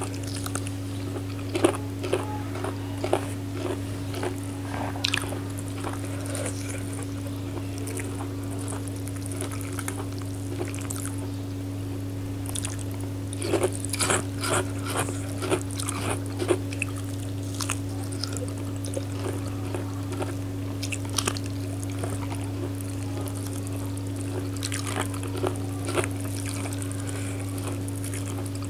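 Close-up eating sounds: wet chewing, lip smacks and clicks that come in bunches, over a steady low hum.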